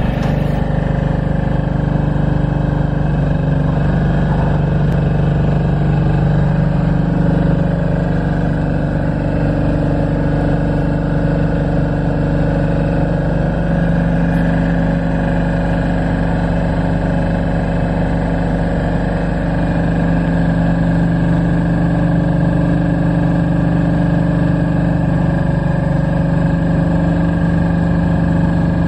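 Kohler diesel engine of a Towerlight VB-9 lighting-tower generator running steadily at constant speed, with a steady hum.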